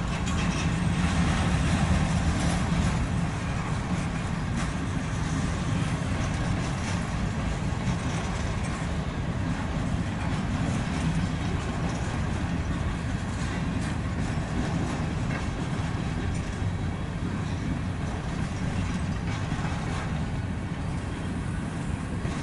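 Freight cars of a CSX manifest train rolling steadily past over the rails: a continuous low rumble of wheels and car bodies.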